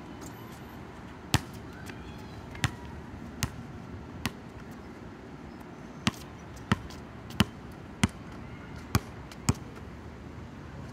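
Basketball bouncing on a hard outdoor court: a few scattered bounces in the first half, then a steadier run of about six bounces, roughly one every two-thirds of a second, in the second half.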